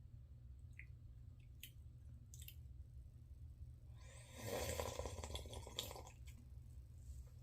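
A slurp of hot coffee lasting about two seconds, starting a little past the middle, after a few faint clicks of the lips and mouth.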